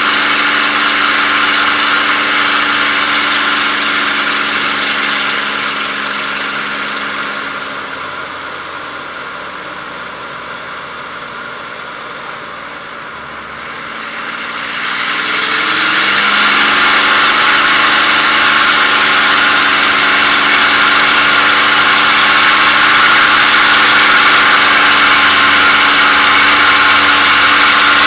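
P-51 Mustang's V-12 engine heard from inside the cockpit, throttled back for landing. The engine note drops and quietens for several seconds, with a brief bump near the middle as the wheels meet the runway. The power then comes back up over a couple of seconds to a loud steady run.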